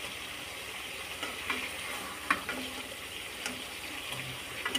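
Duck curry with potatoes sizzling in oil in a pan while a spatula stirs it, with a few sharp scrapes and taps of the spatula against the pan.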